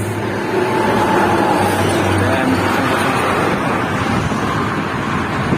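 Intercity bus passing at highway speed, a steady rush of tyre and engine noise.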